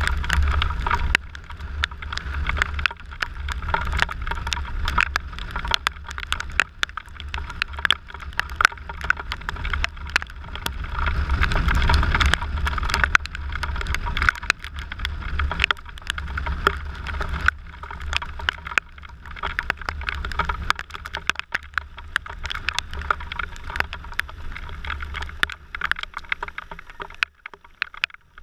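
Riding noise picked up by a scooter-mounted camera in the rain: wind rumbling on the microphone, many raindrops ticking against the camera, and tyre hiss on wet tarmac. It falls away sharply about a second before the end as the scooter slows.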